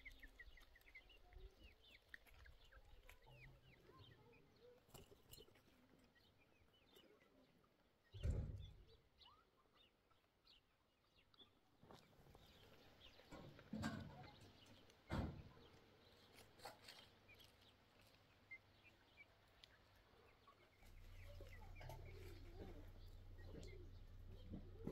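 Quiet outdoor ambience with faint bird chirps and three dull thumps, the loudest about eight seconds in. A low hum sets in during the last few seconds.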